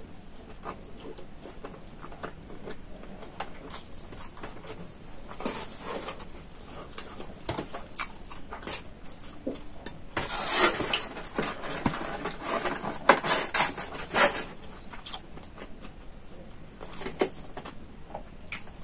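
Close-miked eating and handling sounds: small scattered clicks and taps as fingers pick food from a styrofoam box and the mouth chews. About ten seconds in comes a louder stretch of crackling and scraping lasting about four seconds as the styrofoam box is handled.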